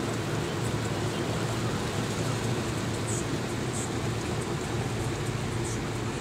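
Automatic car wash heard from inside the car's cabin: rotating brushes and water spray working over the body and windshield make a steady rumbling wash of noise, with a few brief high hisses of spray.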